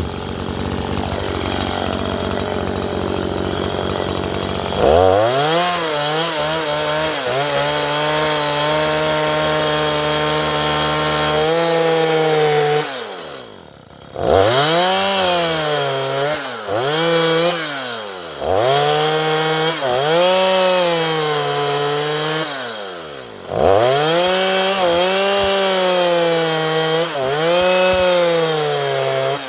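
Stihl MS 162 two-stroke chainsaw cutting lengthwise into a wooden fence post. After a steadier stretch, the engine pitch repeatedly rises and sags as the chain loads in the wood, easing off briefly about halfway through and again near three quarters of the way in.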